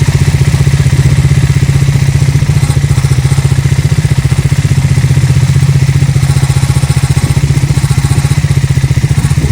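Triumph Speed 400's single-cylinder engine idling steadily at the exhaust silencer, with an even, fast pulse. It is the silencer noise that is often mistaken for engine noise, a fault fixed by replacing the silencer under warranty.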